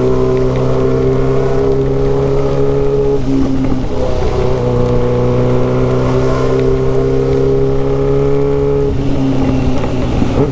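Yamaha XJ6's inline-four engine running through a straight-pipe exhaust while riding, a steady loud note that breaks and shifts briefly twice, about three seconds in and about nine seconds in.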